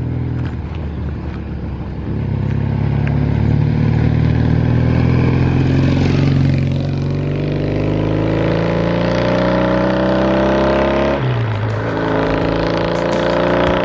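Vintage Japanese vertical-twin motorcycle running under acceleration, its exhaust note climbing steadily in pitch, with a sudden drop in pitch about eleven seconds in before it climbs again.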